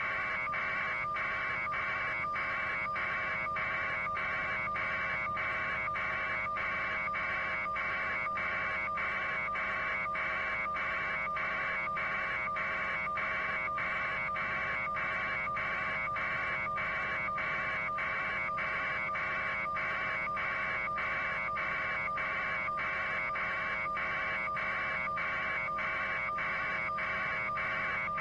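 Steady hiss pulsing evenly about twice a second, over a low steady hum: electronic noise, with no voice.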